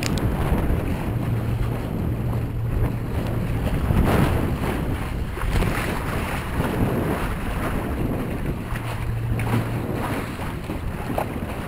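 Wind blowing hard across the microphone, with water rushing and splashing against the hulls of a Magnum 21S sport catamaran under sail. A low steady hum comes in twice for a couple of seconds.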